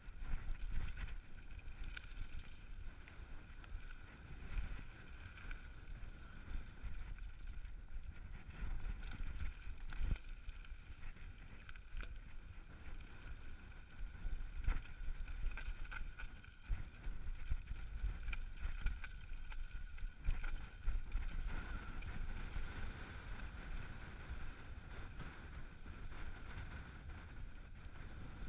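Mountain bike rolling fast down a rocky, stony trail: tyres rumbling over loose rock, with frequent sharp knocks and rattles from the bike over the bumps.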